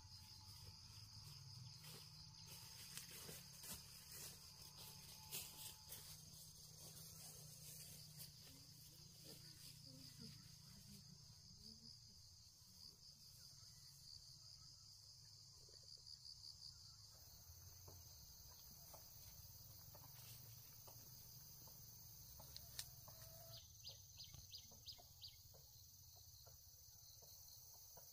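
Near silence with faint, steady high-pitched insect chirring and a few light ticks.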